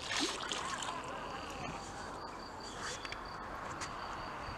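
Quiet outdoor ambience: a steady low hiss with a faint, thin, high insect trill that starts about a second in. A brief louder noise comes right at the start.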